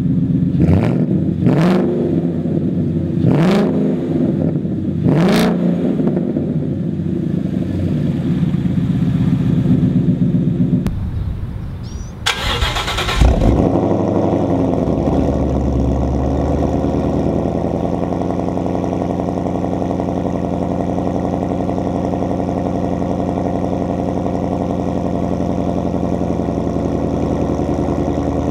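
2015 Mustang GT's 5.0 L V8 revved in four quick throttle blips through an SLP Loud Mouth muffler delete. It then cuts to a start about twelve seconds in, a short loud burst as it catches, and a steady idle through a Corsa Sport cat-back exhaust.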